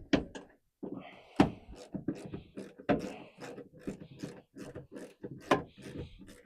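Irregular clicks and knocks of a hand tool and metal screws as the backup camera's mounting screws are run in toward snug, a few sharp knocks standing out among them.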